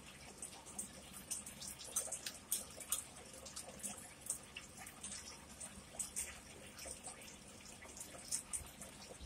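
Close-miked wet chewing and mouth sounds: soft irregular smacks and clicks, several a second, as a mouthful of food is chewed.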